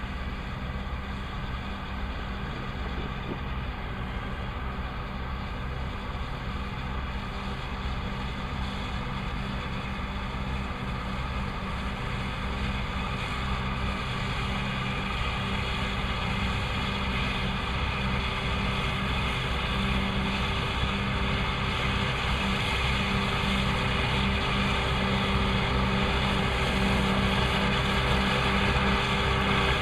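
Massey Ferguson 2600-series diesel tractor running steadily while mowing hay, growing gradually louder.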